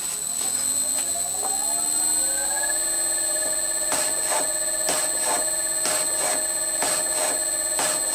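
Bridgeport milling machine with a slotting head attachment starting up: its motor whine rises over the first few seconds and then holds steady. From about four seconds in, the slotting tool strokes up and down cutting a keyway in steel, with a sharp clack about twice a second on each stroke.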